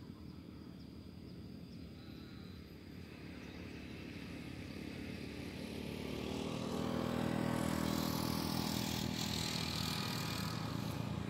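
A motor vehicle's engine approaching, growing steadily louder and loudest from about two-thirds of the way in.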